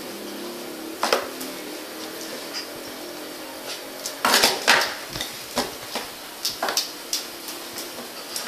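Irregular sharp knocks, scrapes and light clinks as a small dog noses and bumps a cardboard box across a tile floor, its collar tag clinking. One knock comes about a second in, a louder cluster around four to five seconds, then a run of smaller ones.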